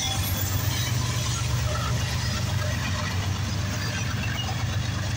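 A GE ES44DC diesel locomotive's V12 engine running as it rolls past, a steady low rumble, giving way to the freight cars rolling by on the rails.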